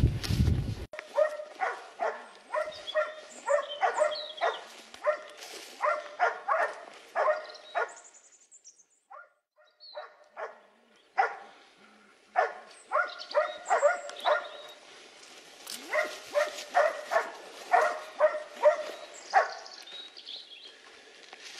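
A single loud gunshot right at the start, then hunting dogs barking over and over, about two barks a second, with a short lull about halfway through.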